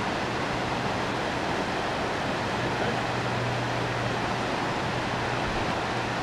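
Steady rush of river water, an even hiss with no distinct events, under a faint low hum.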